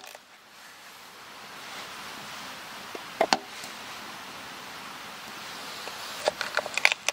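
Knife cutting potato on a wooden cutting board: two sharp knocks of the blade on the board about three seconds in, then a quick run of knocks near the end, over a steady background hiss.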